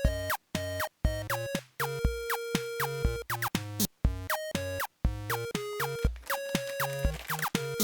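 Background music: a light, bouncy synthesized tune of short plucked notes over a bass line in a steady beat.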